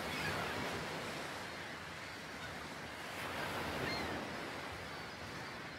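Ocean surf washing in: a steady rushing that swells twice, with a few faint, short high chirps over it.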